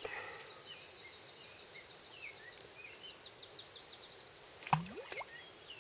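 A songbird trilling in the background: a fast run of short high notes for about two seconds, then a second, slightly lower trill, with scattered chirps over faint outdoor ambience. About five seconds in, a short louder sound with a quick rising tone.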